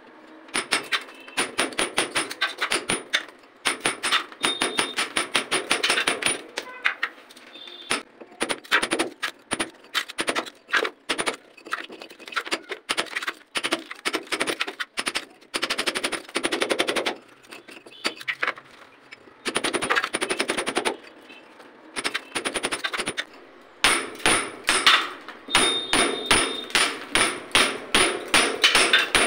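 Hammer striking a chisel to cut a wiring groove into a brick wall: runs of quick, sharp taps several a second, broken by short pauses.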